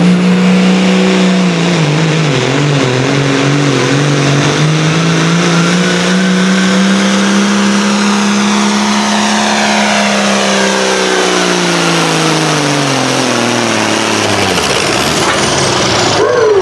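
A John Deere pulling tractor's diesel engine works hard under full load, dragging a weight-transfer sled. Its pitch dips early on and climbs back to a peak about halfway through. Over the last several seconds it falls steadily as the engine lugs down and the tractor stops.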